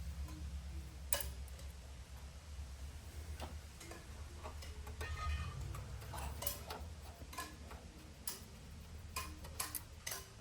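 Irregular light clicks and ticks of a small screwdriver and metal parts as tiny screws are driven into the radio's panel, over a low steady hum.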